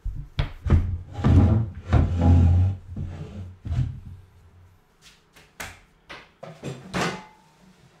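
Irregular knocks, bumps and thuds from objects in a room being handled and banged about. A loud, low rumbling stretch comes in the first few seconds, followed by sharper single knocks.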